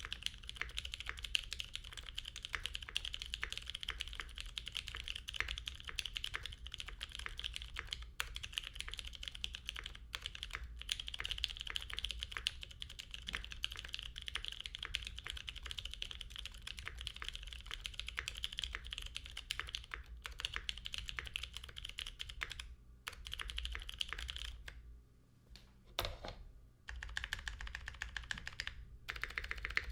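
Fast continuous typing on a custom mechanical keyboard with Greetech Brown tactile switches, lubed and filmed, on a polycarbonate plate with a tape mod, the keystrokes clacking densely. Typing pauses briefly with a few isolated key presses about 25 seconds in, then resumes.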